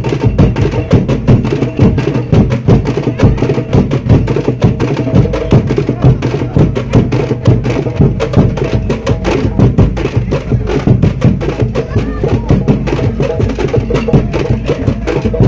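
Festival drum corps playing live: snare and bass drums beaten with sticks in a fast, steady beat of sharp strikes.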